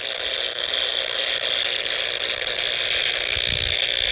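Power line noise played through an ICOM R30 communications receiver's speaker: a steady harsh buzzing hiss, strongest in a high band. A low rumble joins about three and a half seconds in. The interference comes from a nearby transformer, which the owner puts down to a bad or loose ground or a faulty lightning arrester.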